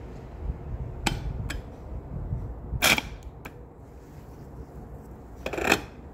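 Removed Volvo D12 EGR valve being worked on the bench, giving a few sharp clicks and clunks, the loudest about three seconds in, and a short rougher burst near the end. The mechanism sounds not good, almost like grinding, and its actuator gear turns out to be partially stripped.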